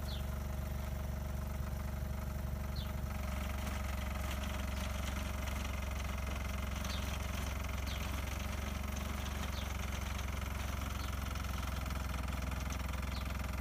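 Engine of a ТЗ-4К14 articulated mini tractor running steadily as it drives a rear rotary tiller through the soil.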